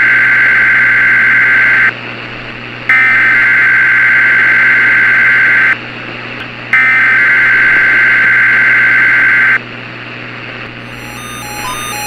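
EAS/NOAA Weather Radio SAME header: three bursts of screechy two-tone digital data, each about three seconds long with a second's pause between, encoding the tornado watch alert over steady radio hiss. Near the end a beeping electronic tune starts up.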